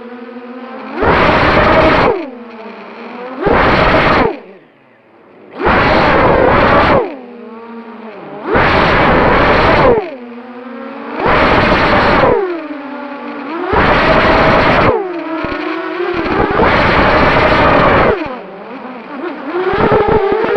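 Electric motors and propellers of a 3D-printed quadcopter whining in repeated surges, about one every two to three seconds, as the throttle is pushed up and eased off; between surges the pitch falls away as the motors slow.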